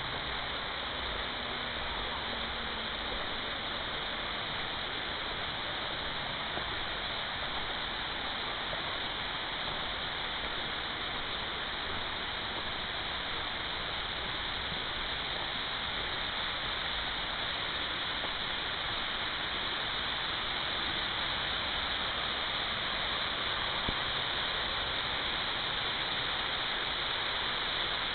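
Steady rushing of a stream's water, a continuous hiss that grows slightly louder near the end.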